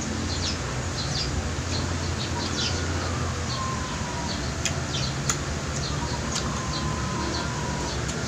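Small birds chirping again and again in short high calls, over a steady low hum.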